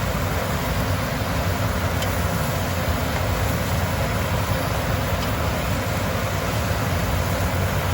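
Cubed beef chuck sizzling steadily as it browns in a pot, over a constant low rumbling noise.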